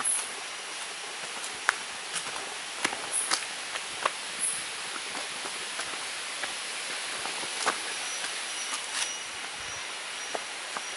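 Footsteps on dry leaf litter and stones, irregular crunches and knocks, over a steady hiss of jungle background.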